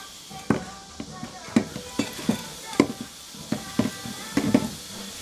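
A kitchen utensil knocking repeatedly and irregularly, about twice a second, over a light hiss, during the preparation of chive pancakes, with faint background music.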